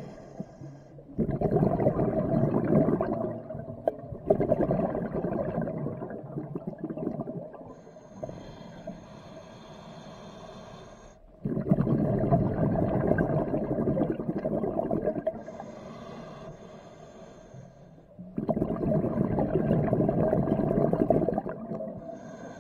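Scuba diver's breathing through a regulator, heard underwater: loud bubbling exhalations lasting a few seconds each, alternating with the quieter hiss of the regulator on each inhale, about three breaths in all.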